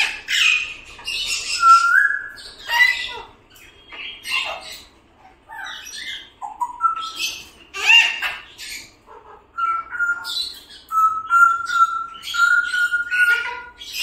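Large parrots squawking in a string of harsh screeches, mixed with short whistled notes, and a run of steady whistled notes over the last few seconds.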